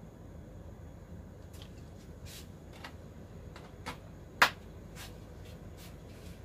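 Cooking oil heating in a frying pan over a gas flame, giving scattered small crackles and pops, with one sharp pop about halfway through.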